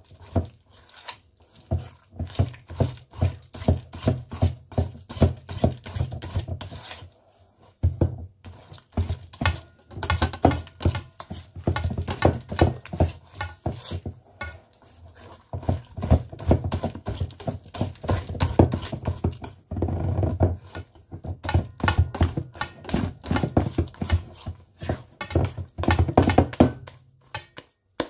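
Thick batter being stirred by hand in a stainless steel bowl: a rhythmic run of thunks and scrapes of the utensil against the bowl, about two to three a second, with a few brief pauses. The stirring is working melted margarine into the batter.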